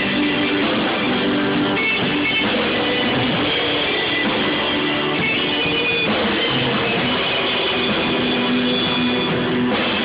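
Small live band playing a loud rock-style jam: electric and acoustic guitars over a drum kit, with a dense, steady sound.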